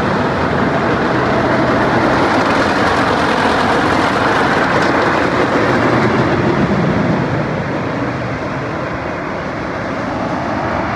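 Wooden roller coaster train rumbling and clattering along its wooden track, a steady loud rumble that eases slightly about eight seconds in.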